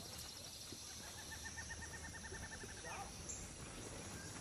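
Quiet outdoor ambience with a faint bird trill: a quick, even run of chirps lasting about two seconds, starting about a second in.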